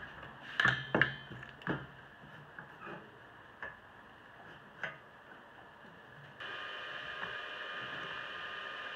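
Pieces of steel square tube knocking and clicking on a wooden workbench as they are set into a corner joint: several sharp knocks, the loudest about a second in. About six and a half seconds in, a steady hum with a high whine starts abruptly and holds.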